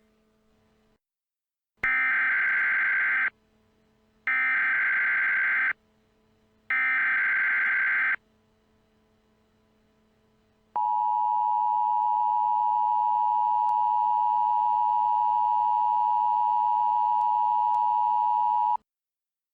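Emergency Alert System alert tones: three identical short bursts of screeching SAME header data, each about a second and a half, with pauses between. After a gap comes the EAS two-tone attention signal, a steady harsh tone held for about eight seconds before it cuts off. The tones mark the start of an emergency broadcast message.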